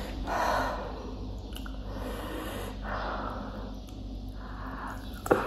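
Close-up eating sounds: a person chewing spicy noodles and fried chicken, with two audible breaths through the nose. A short knock comes near the end.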